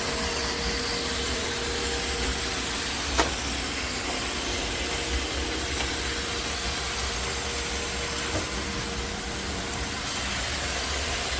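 iRobot Roomba Combo (Y0140) robot vacuum running steadily, a continuous whirring hiss with a faint steady tone in the first few seconds. A single sharp click about three seconds in.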